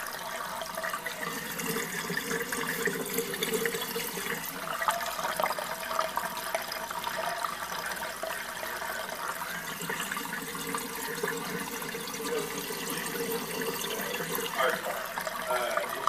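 A dishwasher draining: water flowing steadily through the sink-top air gap (anti-backflow valve) into the sink drain. The flow is the sign that the cleaned air gap is passing water freely.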